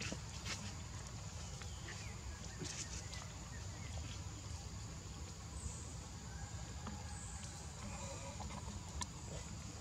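Faint animal calls and small clicks over a steady low hum.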